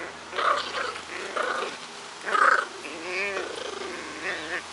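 A French bulldog and a Chihuahua puppy growling in play while tugging on a toy: a string of short growls and grunts, with a longer wavering growl about three seconds in.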